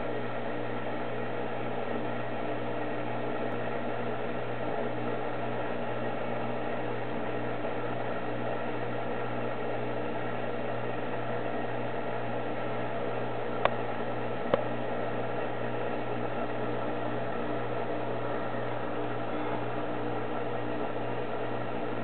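Reef aquarium pumps running with a steady hum and whir. Two short sharp clicks come just under a second apart, a little past the middle.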